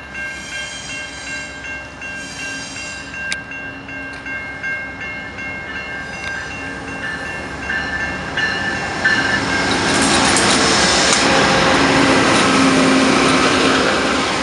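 Railroad crossing bell ringing steadily while a VIA Rail passenger train, led by a GE P42DC locomotive, approaches. From about nine seconds in, the train passes close by and its running noise swells loud, wheels on rail.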